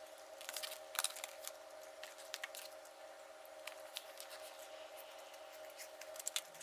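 Plastic spoon scraping and clicking against a plastic takeout bowl while eating, with scattered small clicks that are sharpest about a second in and again near the end. A steady hum runs underneath.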